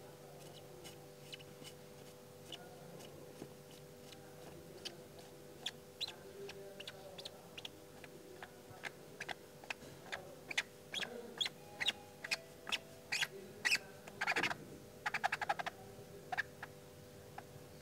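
Spin-on diesel fuel filter being turned by hand: irregular short squeaks and clicks from the canister and its seal, coming more and more often, with a quick run of rattling squeaks about fourteen to sixteen seconds in.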